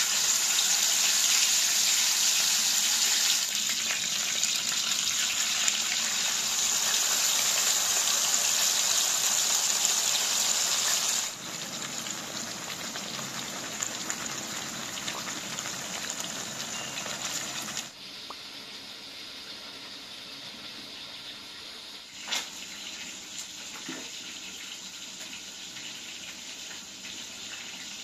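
Seasoned fish fillets frying in hot oil in a pan, a loud steady sizzle that starts the moment the fish goes in. The sizzle drops sharply in level about 11 seconds in and again about 18 seconds in, with a few faint clicks near the end.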